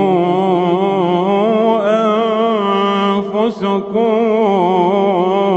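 A male reciter chanting the Quran in slow melodic tajweed style, drawing out long vowels with wavering, ornamented turns of pitch. The line breaks briefly for a breath about three and a half seconds in, then goes on.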